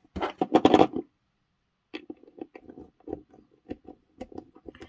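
Small precision screwdriver working at a security camera's plastic front housing: a run of light, irregular clicks and scrapes. A brief louder rustle of handling comes near the start.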